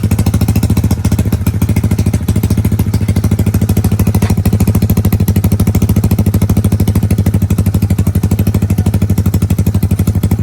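Yamaha Mio scooter's single-cylinder four-stroke engine idling through a GP-type aftermarket racing exhaust: a loud, steady, rapid and even exhaust pulse.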